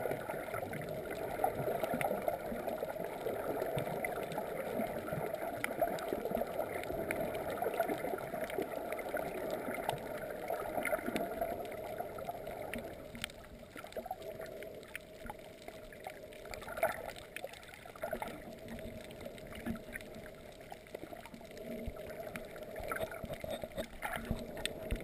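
Muffled underwater water noise heard through a camera's waterproof housing, with scattered faint clicks. It gets quieter about halfway through.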